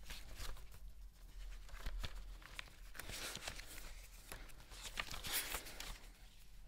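Faint handling noise as someone searches for a text: scattered light clicks and brief rustles, the clearest rustles about three and a half and five and a half seconds in.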